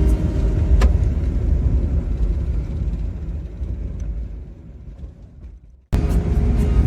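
Low, steady road rumble of a car, with a single click about a second in. The rumble fades over several seconds and cuts off, then returns with background music about six seconds in.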